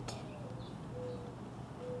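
A dove cooing faintly: a few short, soft, low notes about half a second apart, over a steady low hum.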